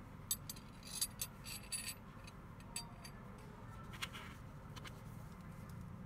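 Light metallic clicks and clinks from a brass-finish surface door bolt being handled as its keeper is slid off the bolt rod. A quick cluster of clicks comes in the first couple of seconds, then a few single clicks, one near the middle with a short ring.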